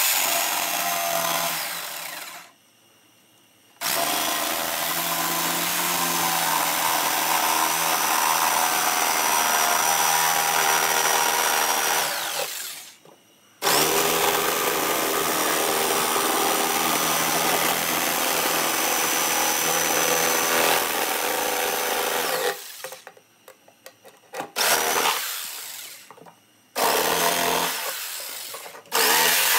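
Corded jigsaw cutting through thick pallet plywood. It runs in several long spells, each stop marked by a falling pitch as the motor spins down, with a few short bursts near the end.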